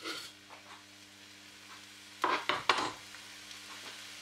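Chopped onions frying gently in oil in an enamel pot: a faint sizzle over a low steady hum, with a few sharp clacks about two seconds in.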